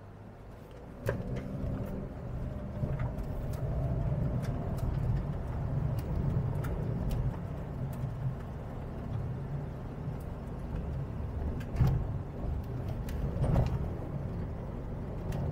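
Suzuki XL7 driving over a gravel track: a low rumble of the tyres and its 1.5-litre four-cylinder engine, with loose stones clicking under the wheels. The rumble steps up about a second in.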